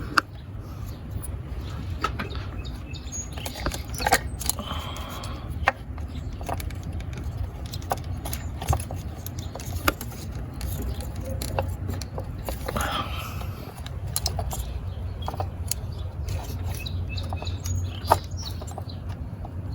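Scattered clicks and light clinks of parts being handled in an engine bay while an ignition coil is pushed back onto a spark plug, over a steady low rumble.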